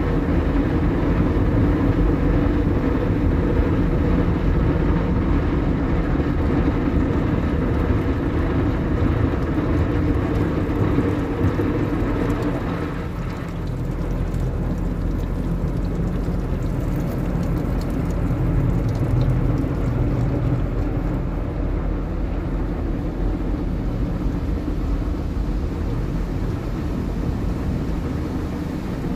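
Automatic tunnel car wash working over a car, heard from inside the cabin: water spraying onto the glass and rotating wash brushes scrubbing, a steady rushing noise with a low mechanical hum.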